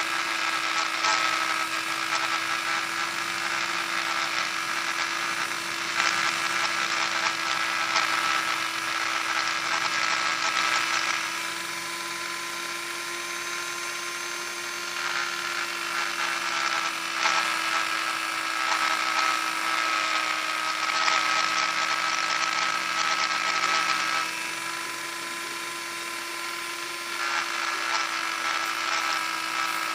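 Dremel rotary tool running at a steady high speed, sanding the rough edges of a coaster: a steady whine with scratchy grinding over it. The grinding drops away twice for a few seconds, about eleven and about twenty-four seconds in.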